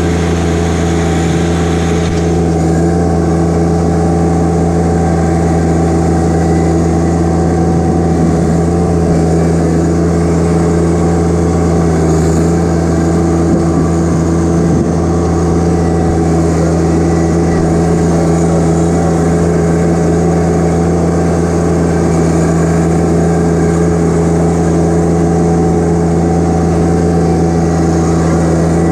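John Deere 1025R compact tractor's three-cylinder diesel engine running at a steady speed as the tractor drives along, heard close up from the operator's seat.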